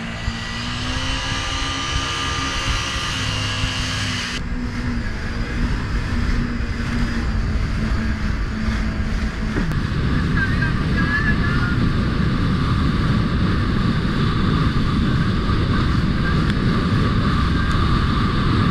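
Jet ski engine pulling away, its pitch rising over the first couple of seconds. It then runs at speed, and a loud rushing of wind and water grows over the engine in the second half.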